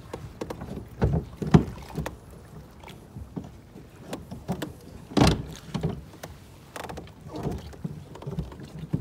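Water slapping and sloshing against a kayak's hull in a narrow gap of a wreck, in irregular surges with the loudest slap about five seconds in.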